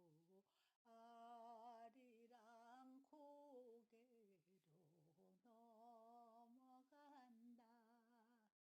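Very faint humming of a wavering tune by one voice, in several short phrases, close to silence; it stops just before the end.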